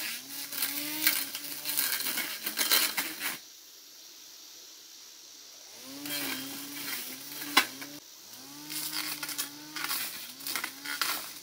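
Handheld battery-powered grass trimmer cutting through weeds, its motor speeding up and slowing again and again as the trigger is worked, with crackling of cut stems. It stops for a couple of seconds at about three and a half seconds in, then starts again; one sharp knock comes soon after, about seven and a half seconds in.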